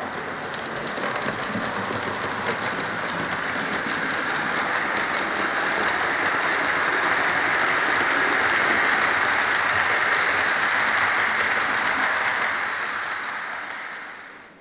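Model railway express train running on the track, its wheels making a steady rushing rumble that swells as the coaches pass close by and fades near the end.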